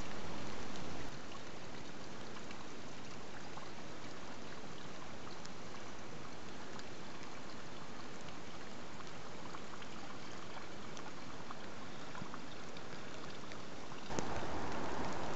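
Steady outdoor ambience: an even rushing hiss, like trickling water, with faint scattered ticks. A slightly louder stretch comes in the first second and again near the end.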